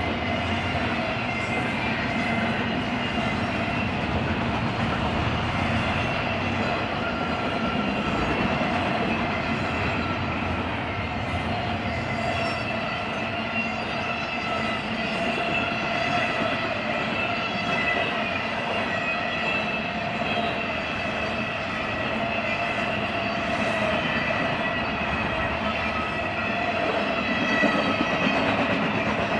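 Freight cars of a BNSF intermodal train, double-stack container well cars and trailer flatcars, rolling past at steady speed: a continuous rolling rumble with several steady high tones over it.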